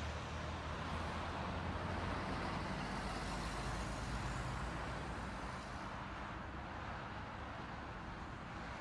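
Faint, steady low hum of a car idling in traffic with street noise, heard from inside the car through a dashcam microphone; it gets a little quieter after about five seconds.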